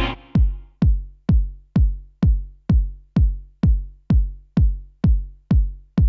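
Deep house beat stripped to its kick drum: a synth chord dies away in the first half second, then a lone four-on-the-floor electronic kick plays about twice a second, each hit dropping quickly in pitch.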